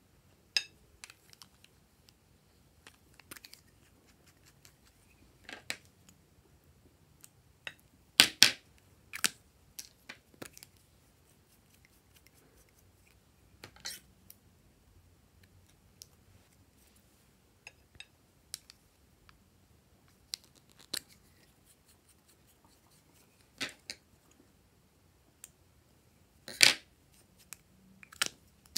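Scattered sharp plastic clicks and snaps as caps are pulled off and handled on small plastic tubes, with long quiet gaps between them. The loudest are a quick double click about eight seconds in and a single one near the end.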